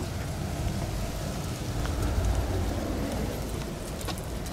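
Dogs' paws crunching and pattering across wood-chip ground, an uneven rustle over a steady low rumble.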